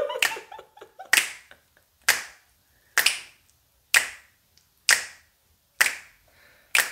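Fingers snapping a steady beat, about one sharp snap a second, keeping time for rapping.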